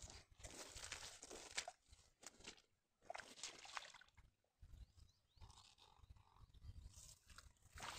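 Faint crackling and rustling of dry grass and reeds underfoot and against the nylon cast net as it is gathered, in short irregular bursts with brief silent gaps.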